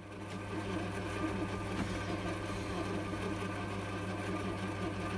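Sieg C3 mini metal lathe running, its motor and spindle turning at a steady speed with a constant hum.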